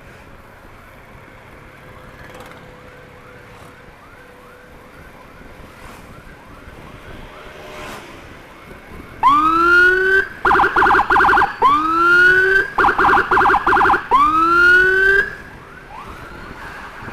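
Electronic emergency-vehicle siren sounding close and loud for about six seconds from nine seconds in: long rising whoops alternate with bursts of rapid warble. Before and after it, a fainter siren repeats quick rising sweeps, about two a second.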